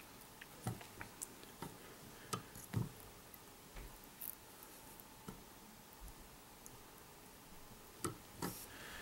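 Faint, irregular small clicks and taps from hands working tying thread around a fly held in a fly-tying vise, over quiet room tone.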